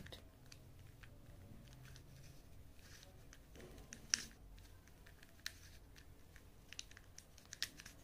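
A 3×3 Rubik's cube being turned by hand: faint, scattered clicks of its plastic layers, the loudest about four seconds in.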